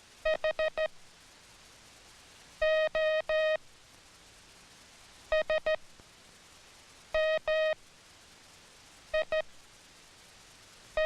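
Morse code tone sent by an operator on a telegraph key. It comes in separate letter groups with tight spacing inside each letter: a quick run of four short dits, a group of three long dahs, then more groups of dits and of dahs with pauses between them.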